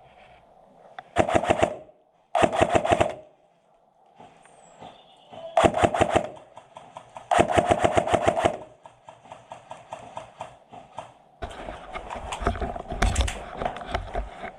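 Airsoft guns firing on full auto: four short bursts of rapid, evenly spaced shots in the first nine seconds, then fainter scattered shots with a low rumble near the end.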